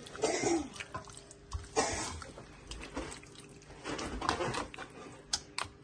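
Water splashing and running in short irregular spurts, with a few sharp clicks and knocks in between.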